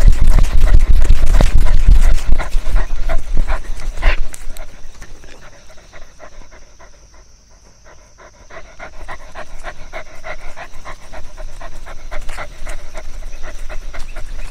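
A dog panting fast and close to the microphone, in a quick steady rhythm. A heavy low rumble sits under it for the first few seconds, then the panting fades in the middle and grows louder again toward the end.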